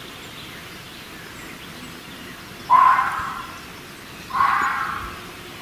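Fox calling twice, two harsh calls about a second and a half apart, each starting sharply and fading away, over faint outdoor background noise.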